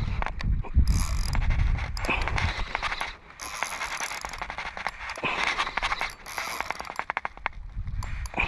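Spinning reel being cranked in several short spurts, its gears and rotor clicking as line is wound in on a lure retrieve. Wind buffets the microphone with a low rumble in the first couple of seconds.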